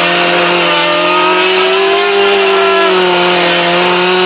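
Two-stroke chainsaw running loud and steady, its pitch lifting slightly about two seconds in and settling back a little before the end.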